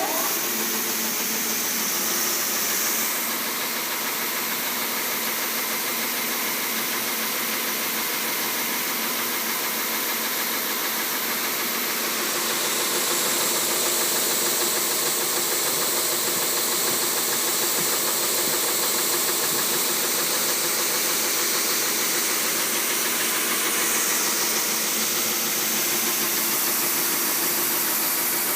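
Timesavers 137-HD wide belt sander running, a loud steady mechanical noise with a hiss over it; the hiss brightens for a moment about two seconds in and again near the end.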